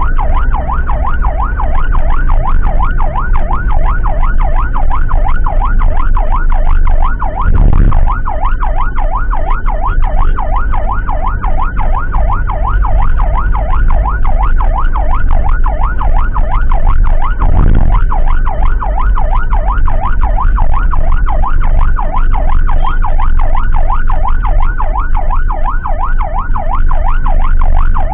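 Emergency-vehicle siren in a continuous fast yelp, its pitch sweeping rapidly up and down, over the low rumble of a vehicle on the road, with two dull thuds about ten seconds apart.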